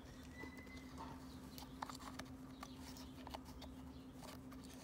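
Faint, irregular small clicks and taps of plastic carburettor parts being handled as a jet is pushed into place by hand, over a low steady hum.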